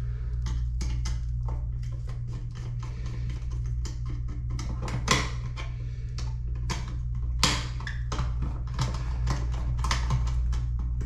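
Small clicks, taps and scrapes of a flat-blade screwdriver working the terminal screws and wires of a side-wired rocker light switch, with two louder clicks about five and seven seconds in, over a steady low hum.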